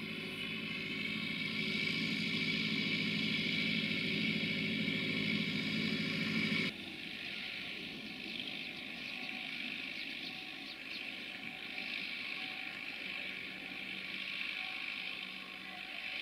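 Belarus MTZ 892.2 tractor's four-cylinder diesel engine running steadily under plowing load. About seven seconds in, the sound cuts abruptly to a quieter, more distant engine hum of the same tractor.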